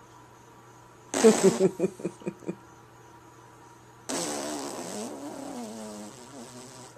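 A man making wordless noises with his mouth against a kitten. About a second in comes a breathy burst and a quick run of five or so pulses that die away. From about four seconds a long, wavering, buzzing hum slowly drifts down in pitch.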